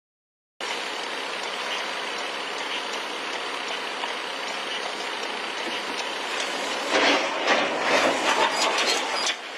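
Steady road and traffic noise from a vehicle, starting abruptly about half a second in. In the last few seconds, louder irregular knocks and rattles come in on top.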